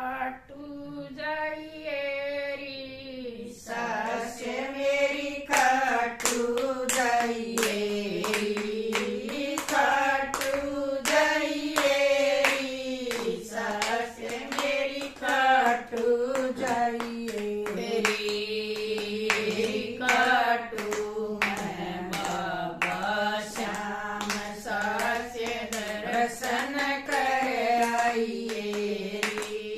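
Women singing a Haryanvi bhajan to Khatu Shyam together, with steady hand-clapping keeping time. The singing starts without claps, and the clapping comes in about four seconds in.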